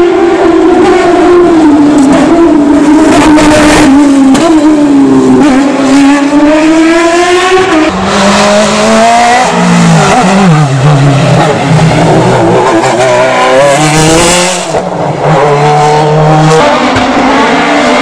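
Hill-climb race cars' engines at high revs, a single-seater and then a sports prototype, the pitch falling and climbing again and again through gear changes and throttle. There is a short lift off the throttle about three-quarters of the way through.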